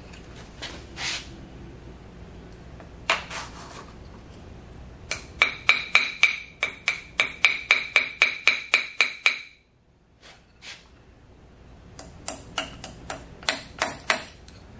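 Small hammer striking steel in quick ringing taps, about four a second, in two runs separated by a short pause, working the tachometer key out of a Monarch 10EE lathe spindle.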